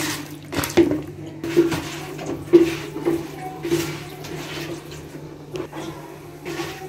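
Pot of dal (lentil soup) boiling, bubbling with irregular blips, one or two a second; the dal is nearly cooked.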